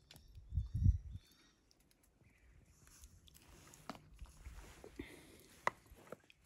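Close-up food-handling sounds: a lemon half is squeezed over grilled fish kebabs and rice, with a few dull thumps in the first second. Then come soft scrapes and several light clicks of a wooden fork against a wooden platter, the sharpest click near the end.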